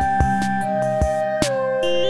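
Background music: held synthesizer-like tones over a steady beat, with the tones stepping down to a lower note about one and a half seconds in.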